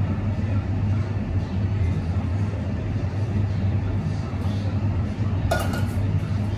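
Behind-the-counter cafe ambience: a steady low hum under scattered clatter, with one sharp clink of crockery or metal a little over five seconds in.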